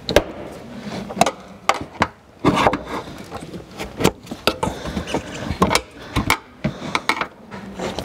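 Plastic interior trim panel being pried off its retaining clips with a screwdriver: irregular clicks, knocks and scraping of plastic as the clips are worked loose.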